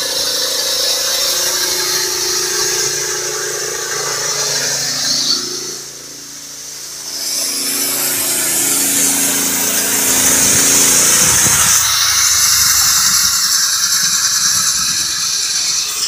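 Small petrol engine running a homemade band sawmill whose blade runs on motorcycle wheels, with a high squeal over the engine. The engine's pitch wavers, and the sound dips briefly about six seconds in.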